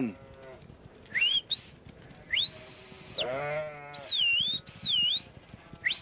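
A shepherd's whistled herding commands to working border collies, each a clear high whistle: a short rising one, a long steady one, one that dips and rises twice, and another steady one near the end. Sheep bleat in between, one falling bleat loudest about three and a half seconds in.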